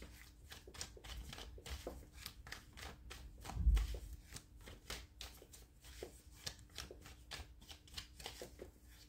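A deck of tarot cards being shuffled by hand: a quick, continuous run of soft card clicks and flicks. A dull thump about three and a half seconds in.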